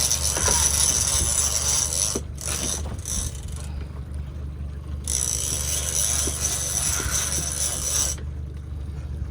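Fishing reel ratchet buzzing in three spells that start and stop abruptly, over the steady low hum of the boat's engine.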